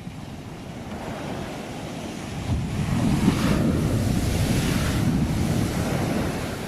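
Ocean surf: the wash swells over the first couple of seconds, a wave breaks about two and a half seconds in and rushes for about three seconds, then eases off near the end.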